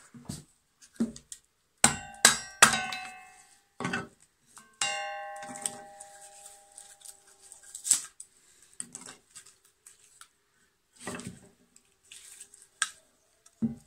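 Splitting kindling on a cast-iron Kindling Cracker: a piece of wood is knocked down onto the fixed blade with another log. There are several sharp knocks, about 2 s in and again about 5 s in, some leaving the iron frame ringing for a second or more, then lighter knocks and clacks of the split wood being handled.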